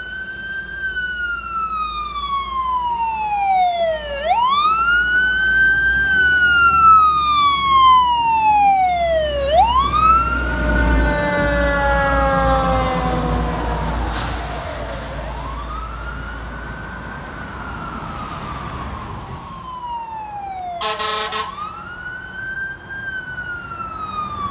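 Fire engine's siren on a slow wail, each cycle rising quickly and falling slowly, with the truck's engine rumble swelling and the siren's pitch dropping as it passes close by about halfway through. Near the end a short horn blast cuts in, and the wail goes on.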